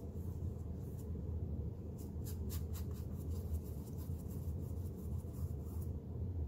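Paintbrush stroking and dabbing acrylic paint onto a canvas: a run of quick scratchy strokes from about two seconds in until near the end, over a steady low hum.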